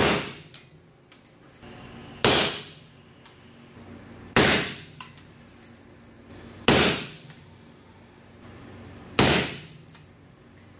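Five suppressed rifle shots about two to two and a half seconds apart, each a sharp crack with a short decaying tail, fired through a SilencerCo Sandman-K suppressor. The meter logs them at about 142–145 dB at the shooter's right ear and 153–154 dB at the muzzle.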